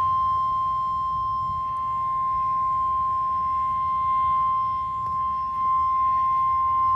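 NOAA Weather Radio 1050 Hz warning alarm tone: a single steady, unbroken high beep from a weather radio receiver. It signals that a warning broadcast, here a tornado warning, is about to follow.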